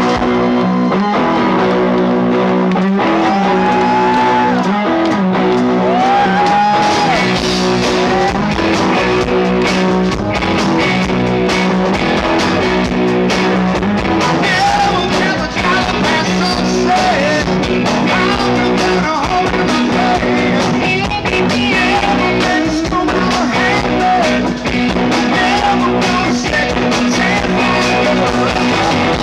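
Live rock band playing loud through a PA: electric guitars, bass and drum kit. The music kicks in abruptly at the start, after crowd noise.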